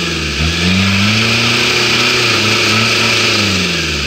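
Toyota Hilux pickup's turbo-diesel engine revving hard under load while the truck is stuck in a muddy rut. The revs dip briefly just after the start, rise and hold, then fall away near the end.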